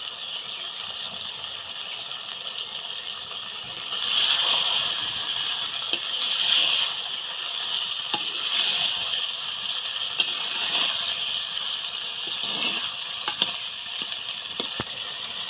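Chicken curry simmering and sizzling in an earthen clay pot, a steady high hiss. From about four seconds in, a metal spatula stirs it, with scrapes and a few knocks against the pot.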